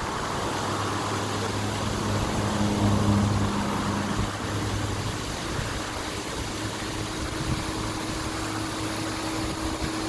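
Water from a hose pouring and splashing onto muddy ground, with a steady low hum underneath.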